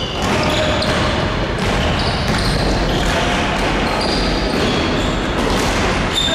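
Basketball game on a wooden gym floor: a ball bouncing and sneakers squeaking, with many short high squeaks scattered over echoing hall noise.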